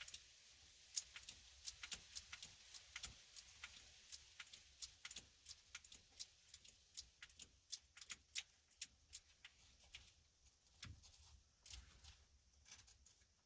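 Faint, irregular small clicks and ticks, a few a second, from a car seatbelt retractor's locking mechanism being handled and worked by hand. They thin out over the last few seconds.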